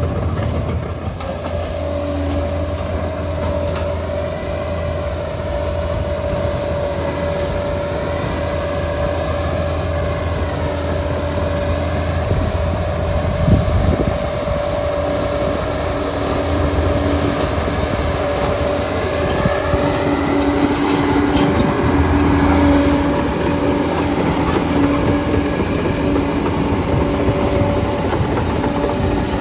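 Liebherr PR 746 crawler dozer running at work: a steady diesel drone with a high whine over it and the clatter of its steel tracks.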